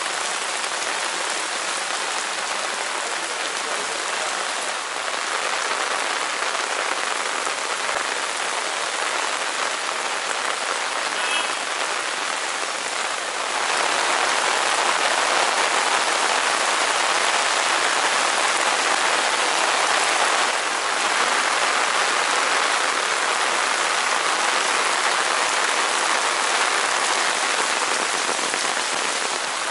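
Heavy downpour of rain falling on the street and parked cars, a steady even noise that grows louder about halfway through.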